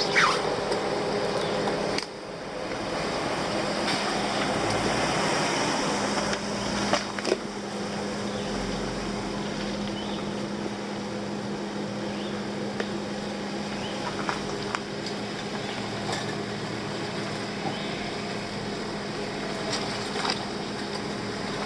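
Off-road vehicle's engine running steadily as it crawls over an obstacle, with a few scattered clicks and knocks.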